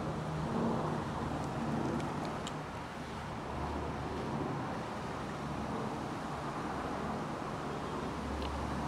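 Steady low rumble of road traffic in the background, with a few faint, crisp clicks of a cat crunching dry kibble.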